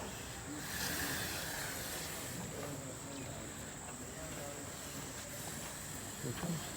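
Steady outdoor background noise with faint distant voices, and a brief swell of hiss about a second in.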